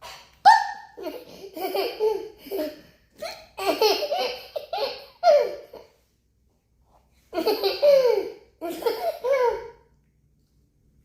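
Toddler laughing hard, in repeated bursts of belly laughs, in two runs with a pause of about a second and a half in the middle. A short, steady high-pitched sound opens it about half a second in.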